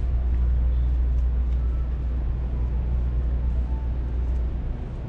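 Steady low rumble of city street traffic, with passing vehicles.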